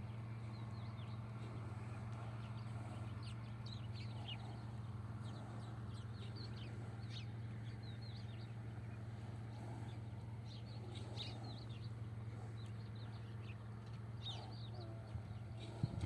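Small birds chirping in many short, high calls over a steady low hum, with a couple of knocks near the end.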